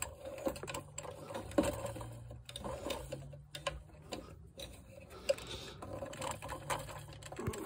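Light plastic clicks and rattles as a new fuel pump module is worked by hand down into the fuel tank opening, over a faint low hum.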